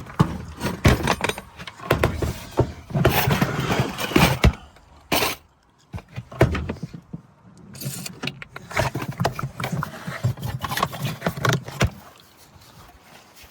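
Irregular knocks and clattering of tools and equipment being handled, with stretches of rough rustling and scraping, quieter after about twelve seconds.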